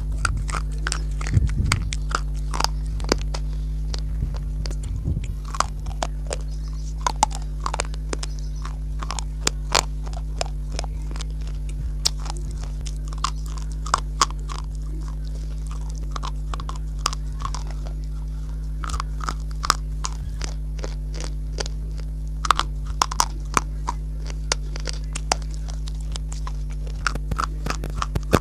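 Chalky white clay-like sticks bitten and crunched close to a clip-on microphone: many sharp, crisp crunches at irregular intervals, over a steady low hum.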